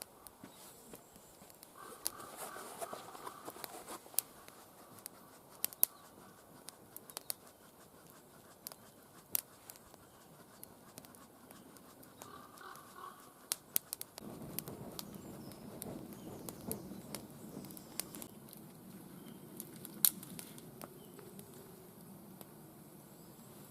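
Small campfire of wet wood crackling, with scattered sharp pops as it struggles to catch. About halfway through a low rushing sound joins in and carries on.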